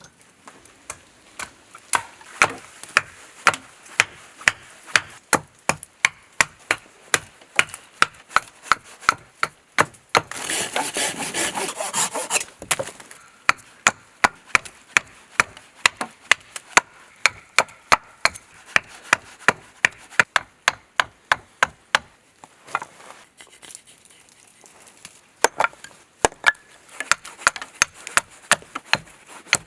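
Hand carving tool chopping green wood while roughing out a spoon blank: sharp, steady strokes at about two a second. About ten seconds in, the strokes give way to roughly two seconds of dense rasping or scraping of wood. Then, after a short pause, the chopping resumes near the end.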